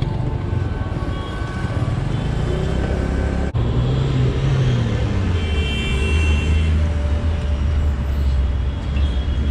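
City road traffic heard from a two-wheeler: a steady rumble of engines and tyres while riding, then, after a sudden cut about three and a half seconds in, a steady rumble of traffic idling and passing at a red light.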